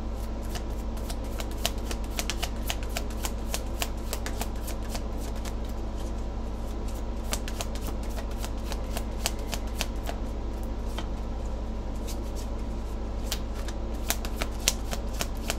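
Tarot cards being shuffled by hand: a long run of quick, irregular card clicks over a steady low hum.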